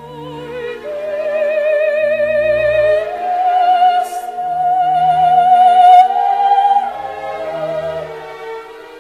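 Music: an operatic voice holding long notes with wide vibrato over instrumental accompaniment, growing to its loudest about six seconds in and then easing off.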